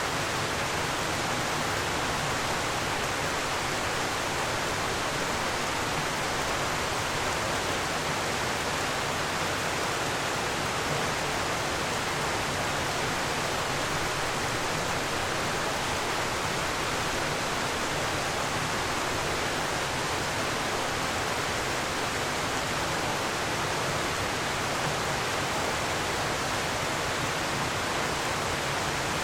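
Hardraw Force waterfall: a steady, even rush of falling water.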